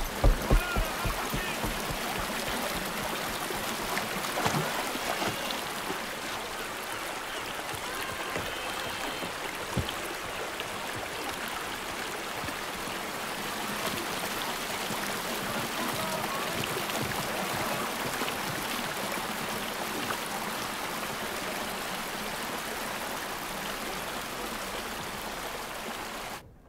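Steady rush of flowing river water, cutting off abruptly shortly before the end.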